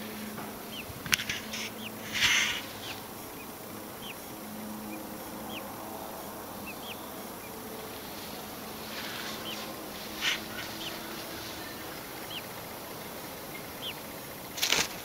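Scattered short, faint chirps of birds in the background, with a few brief rustles standing out above them.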